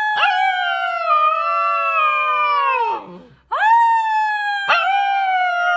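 Husky puppy howling: two long high howls, each sliding slowly down in pitch and dropping away at its end, with a short break about three seconds in.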